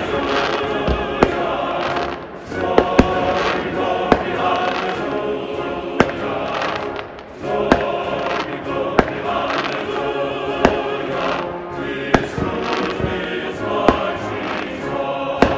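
Professional fireworks display: sharp bangs of bursting shells, irregularly every second or two, over continuous music with singing.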